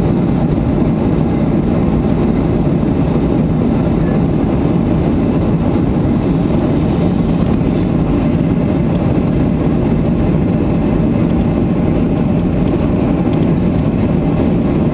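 Jet airliner engines and airflow heard from inside the passenger cabin: a steady, loud, low noise that holds even throughout.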